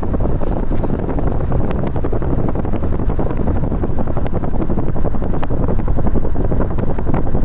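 Wind buffeting the microphone: a loud, fluttering rumble with crackles throughout.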